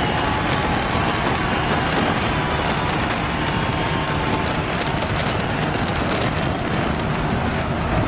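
Open roadster driving at speed: wind rushing and buffeting over the microphone, with engine and tyre noise underneath.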